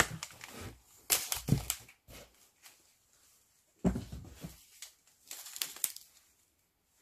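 Paper and cardboard rustling and crinkling as a tea sachet is pulled from a cardboard advent calendar and handled, with a dull thump about four seconds in.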